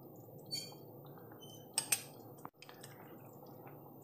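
A spoon clinking against a cooking pan while fresh cream is spooned into thick paneer butter masala gravy: a light ringing clink about half a second in, then a sharper double tap just under two seconds in and one more small tap. Faint wet dripping and plopping of the gravy lies underneath.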